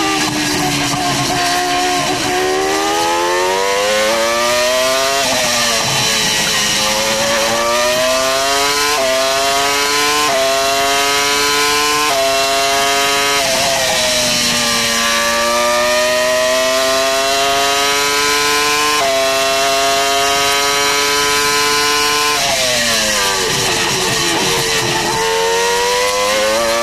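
Formula One V10 engine heard onboard at racing speed, climbing in pitch through the gears with a sudden drop at each upshift. About two-thirds of the way through the pitch falls away as the car slows for a corner, then climbs again near the end as it accelerates out.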